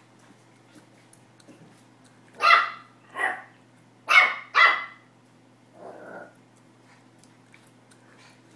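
Excited Pomeranian puppy barking at its ball: four short, high barks starting about two and a half seconds in, the last two close together, then a softer, lower bark about a second later.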